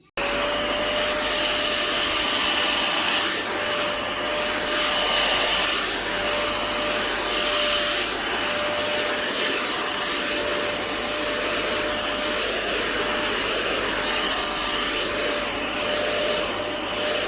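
KV 01 Kurumi handheld UV dust-mite vacuum cleaner running, a steady motor whine over dense suction noise that swells and dips unevenly as the nozzle is moved about. It starts and stops abruptly.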